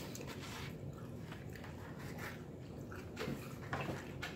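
A person chewing pizza, with soft, scattered mouth clicks and smacks over a low, steady room hum.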